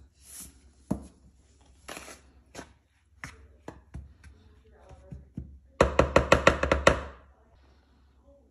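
Kitchen handling sounds as dry flour is mixed with a wooden spoon in a mixing bowl. There are scattered knocks and scrapes, then a quick run of about ten sharp raps, roughly eight a second, which is the loudest part.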